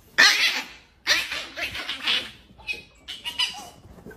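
A Chihuahua and a calico cat squaring off and scuffling: several harsh, raspy bursts of hissing and snarling, the first about a fifth of a second in and a longer run in the middle.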